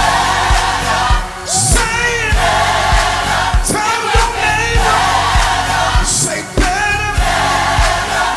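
Live gospel choir singing with a band, over a steady kick-drum beat, with two cymbal crashes along the way.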